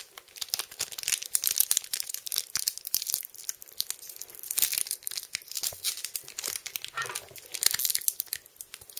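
Foil wrapper of a Pokémon booster pack being crinkled and torn open by hand: a continuous run of sharp, irregular crackles and rustles.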